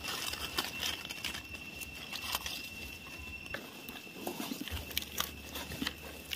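Dry fallen leaves crackling and rustling in irregular small clicks as hands move through the leaf litter to pick a mushroom, with a faint steady high tone behind.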